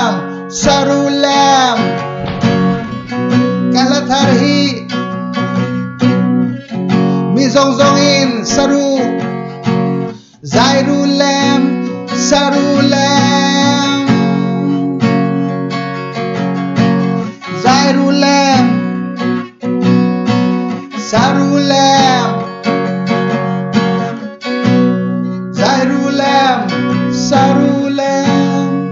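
A man singing over strummed acoustic guitar chords, the sung lines coming every few seconds with the guitar carrying on alone between them.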